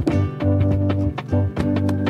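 Background music with a steady bass line and a regular percussive beat.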